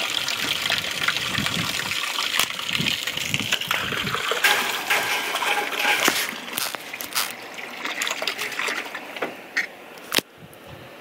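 Water from a hose spraying and splashing onto wet ground and a puddle, a steady rushing splatter that fades out near the end. A single sharp knock just before the end.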